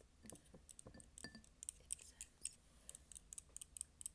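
Light, irregular tapping on a glass candle jar, several quick, faint taps a second.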